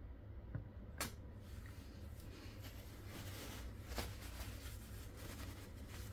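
Faint handling of a plastic bottle while the compressor is filled from it. There are two sharp clicks, about a second in and about four seconds in, with soft rustling between them.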